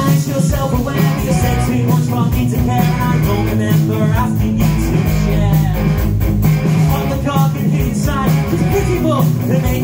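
Live rock band playing loudly: a male lead vocalist singing over distorted electric guitar, bass guitar and a steady drum beat.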